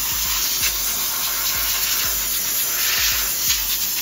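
Compressed-air blow gun hissing steadily as it blows over laser-engraved slate coasters.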